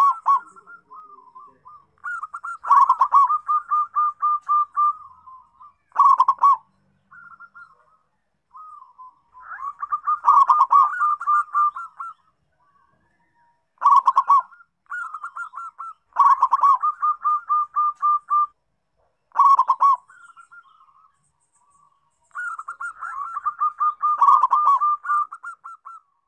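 Zebra dove (perkutut) singing: about eight phrases of rapid staccato cooing notes, separated by pauses of a second or two, the longest phrase running about three seconds near the end.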